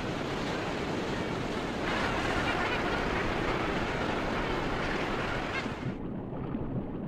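Sea water rushing and washing at the surface, a steady noise that grows louder about two seconds in and turns duller near the end.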